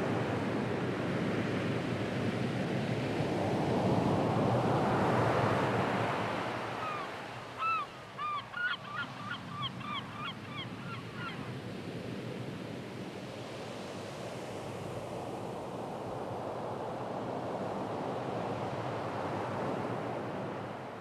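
Ocean surf washing in slow swells, with a bird calling a run of about a dozen notes about seven seconds in, the notes coming quicker and fainter. The surf fades down near the end.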